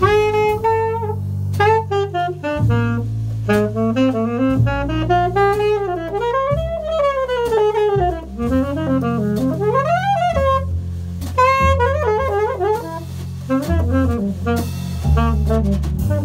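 Jazz trio of saxophone, double bass and drum kit playing a ballad: the saxophone carries a melody in rising and falling runs over the double bass's low notes, with cymbal and drum strokes from the kit.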